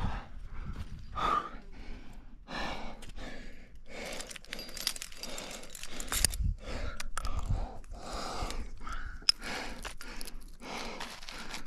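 A rock climber breathing hard while leading a crack, one breath about every second, with a few sharp metallic clicks from climbing gear such as cams and carabiners.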